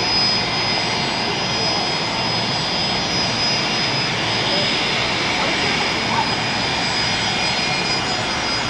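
Jet airliner engines running: a loud, steady rushing noise with a thin high tone over it.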